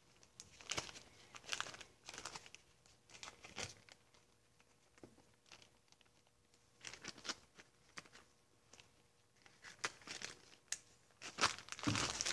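A small plastic parts bag crinkling and rustling as it is handled, in soft, scattered bursts that grow denser and louder near the end.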